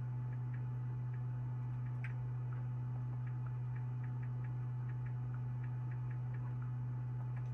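A steady low hum with faint, light ticks scattered through it, about two a second.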